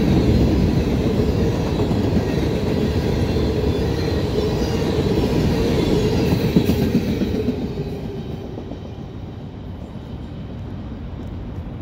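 Freight train of gondola cars rolling past close by, the wheels rumbling over the rails. The last car passes about seven seconds in, and the sound drops away as the train moves off.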